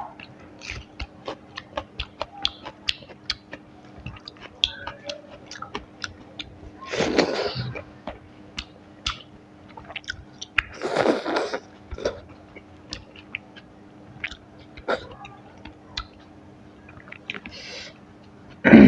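Close-up chewing and wet mouth clicks of someone eating rice and curry, with two longer, louder noisy bursts, one about a third of the way in and one just past the middle.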